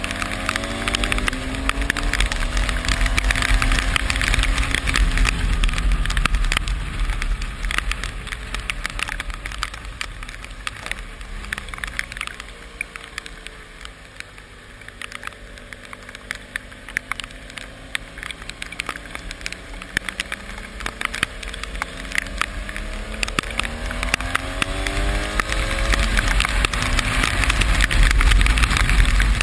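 Motorcycle riding in rain: the engine note slowly falls and rises with speed over a deep wind rumble, under a dense crackle of raindrops striking. Quieter in the middle, louder again near the end.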